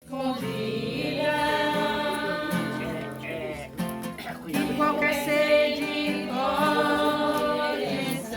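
Singing of a hymn with acoustic guitar accompaniment: a voice holds and glides between sustained notes over steady low chords.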